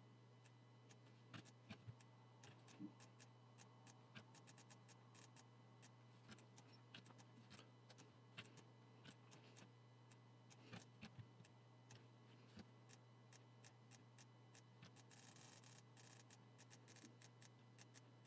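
Faint, irregular clicking of a computer mouse and keyboard as drawing-tool shortcuts and clicks are made, over a steady low hum.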